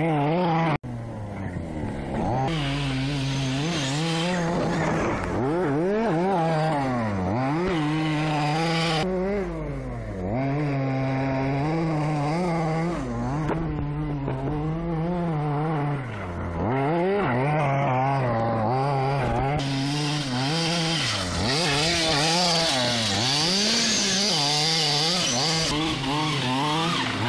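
Small two-stroke engine of an RC car revving up and down as the car is driven, its pitch rising and falling every second or so, with a brief dropout about a second in.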